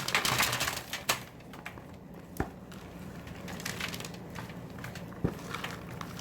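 Candy-coated popcorn being poured from a bowl onto a wax-paper-lined baking sheet: a dry rustling crunch for about the first second, then a few scattered light knocks and softer rustles.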